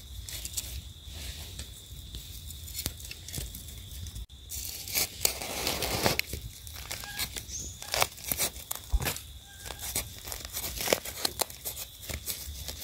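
Dry leaf litter and soil crackling and scraping as hands dig termite mushrooms (Termitomyces) out of the forest floor and pull them up: irregular short crackles and rustles, thickest about five to six seconds in.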